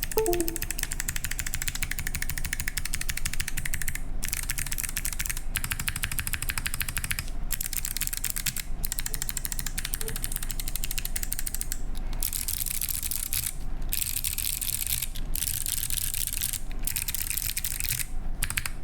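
Very fast typing on a Singa x TGR Unikorn mechanical keyboard with clicky Kailh Box Jade switches and PBT keycaps: a dense rattle of sharp key clicks, broken by short pauses every second or two.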